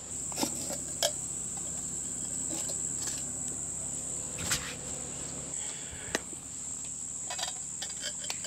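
A steady high-pitched chorus of insects, with a few sharp metal clinks and knocks as the camp oven's lid and veggie ring are lifted off and set down.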